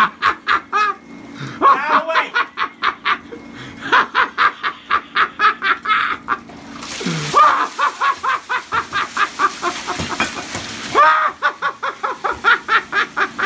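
A person laughing hard in long runs of rapid, breathy 'ha-ha' pulses, starting again several times. A steady hiss joins in for about four seconds in the middle.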